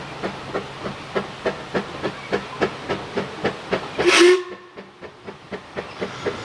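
Narrow-gauge steam locomotive working along, its exhaust beating evenly about three times a second. About four seconds in comes a brief, loud burst of steam hiss.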